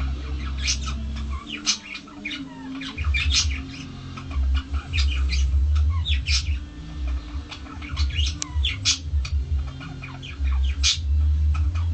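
Small birds chirping and squawking, many short high calls scattered throughout. Under them runs a deep rumble that stops about a second and a half in, returns about three seconds in, and comes and goes from then on.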